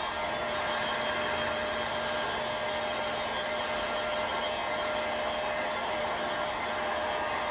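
Handheld heat gun running steadily: a constant rush of blown air with a fixed whine from its fan motor, playing hot air over window tint film to shrink it onto the glass.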